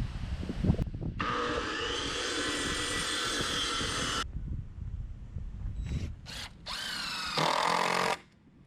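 Cordless DeWalt impact driver driving decking screws into 2x4 lumber. It runs steadily for about three seconds, then gives a few short bursts, one winding up in pitch, and a final run of under a second.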